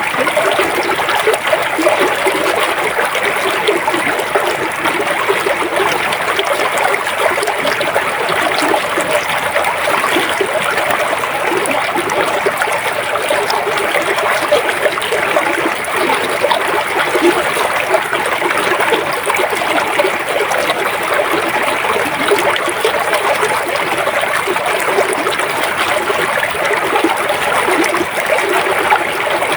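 River water flowing steadily, an even unbroken rush.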